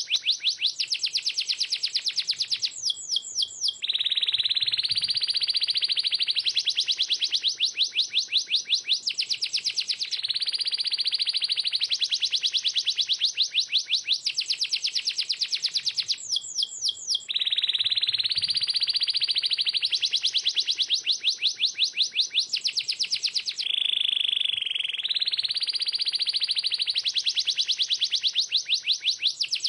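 Domestic canary singing a continuous song of very fast trills ('rolls'), switching from one rapid high trill to the next every second or two without a break.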